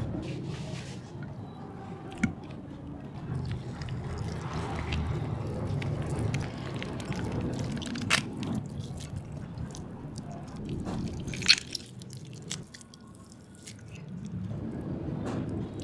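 Juicy braised chicken leg being torn apart by bare hands: wet squelching and tearing of skin and meat, with small crackles and two sharp clicks, about two seconds in and again near the end.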